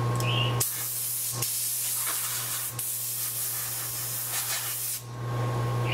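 Can of compressed air spraying, a hiss of about four seconds broken twice for an instant, as dust is blown off the iPad's display before the new glass goes on.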